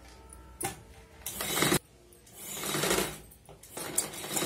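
Vidya sewing machine stitching in several short runs, its needle and feed mechanism clattering and stopping between runs, the last run longer and steadier.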